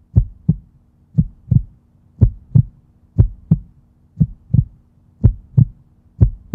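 Heartbeat sound effect: paired low thumps, lub-dub, about once a second, over a faint steady low hum.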